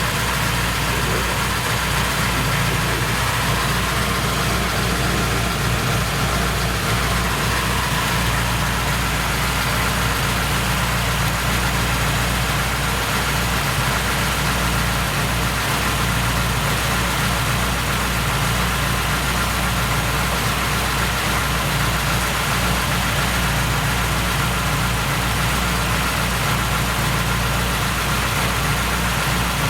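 Warm fuel-injected car engine idling steadily, with a chain rattle that the mechanic puts down to the timing chain.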